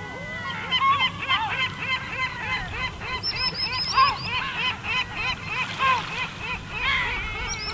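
Gulls calling in a fast, overlapping series of loud, yelping calls, about four a second, with several birds answering each other. Underneath, a low steady wash of the sea on the pebble shore.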